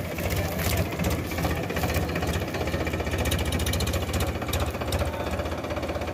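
Powertrac Euro 50 tractor's diesel engine running steadily, its firing pulses making a fast, even clatter.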